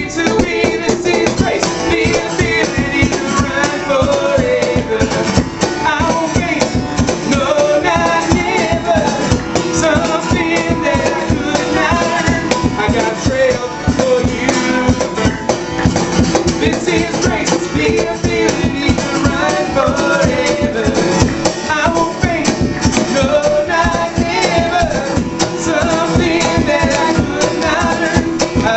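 Live acoustic band music: guitar with a cajon keeping a steady beat, and singing over it.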